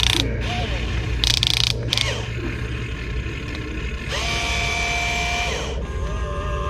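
Electric drive motors and gearboxes of a 1/20 scale Double E RC bulldozer whining: the pitch rises as the motors speed up, holds for about a second and a half, then falls as they stop, and starts again near the end. Short rattling bursts of gear and track noise come near the start and twice around a second and a half in.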